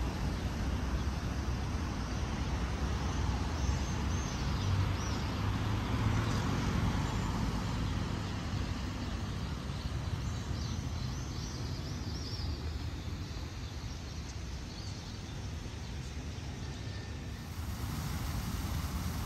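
City street ambience: a steady low rumble of road traffic, with birds chirping now and then. Near the end the splashing of a fountain's jets comes in as a hiss.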